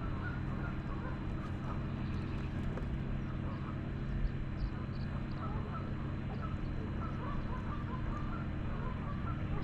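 Waterfowl calling over and over in the distance, many short honks, over a steady low motor hum.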